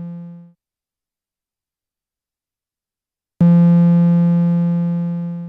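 Eurorack synthesizer note, a low steady tone rich in overtones, struck by an attack–decay envelope from a function generator. It starts sharply about three and a half seconds in, fades over about two seconds and cuts off. The tail of an earlier identical note fades out in the first half second.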